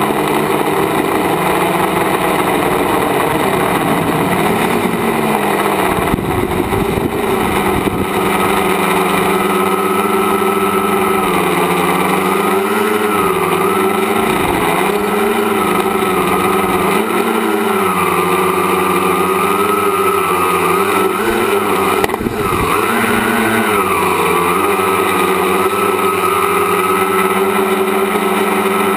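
Tricopter's electric motors and propellers buzzing steadily, recorded on board, their pitch wavering up and down with throttle changes, with brief dips about six and twenty-two seconds in.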